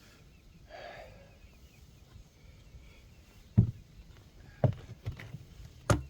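Three sharp knocks, roughly a second apart, in the second half.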